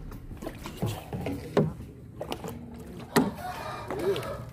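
Irregular knocks and thumps on a small outrigger boat, about one every second, with no engine running.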